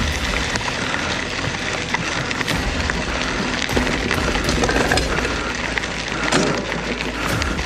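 Wind rushing over the microphone of a riding bicycle, with the bike rattling over a rough trail in many small clicks and knocks.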